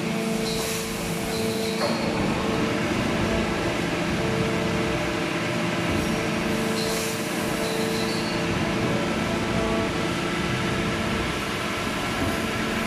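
Plastic injection moulding machine running: a steady hydraulic hum with several fixed tones, and a short hiss about every six seconds as it works through its moulding cycle.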